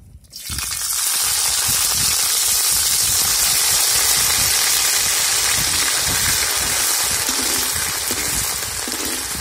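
Pounded ginger-garlic paste hitting hot oil in an iron kadai and frying with a loud, steady sizzle that starts suddenly about half a second in and eases slightly near the end.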